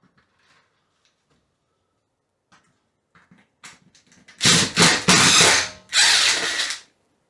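Light clicks and handling, then a power drill running in two loud spells, about four and a half seconds in and again at six seconds, backing out a screw that holds an old ceiling light fixture.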